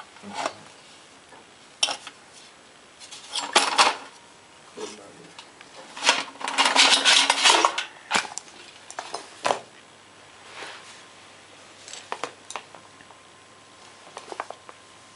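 Metal clinks, knocks and scraping from a WWII German gas mask canister as the M38 rubber gas mask is handled and drawn out of it. Scattered sharp clinks, a longer scraping rattle about halfway through, then a few lighter knocks.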